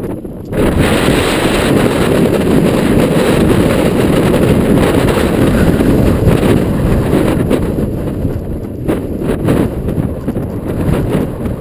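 Strong wind buffeting the microphone of a camera riding along on a fast mountain-bike run, over the rumble of tyres on the trail. It comes up sharply about half a second in and eases a little near the end.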